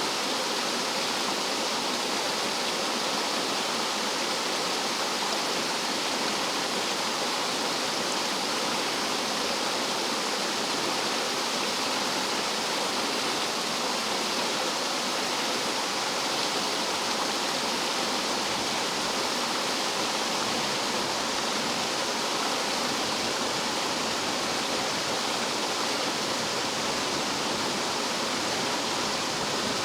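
Rough mountain stream water rushing and falling over rocks like a small waterfall, a steady full splashing rush with no change.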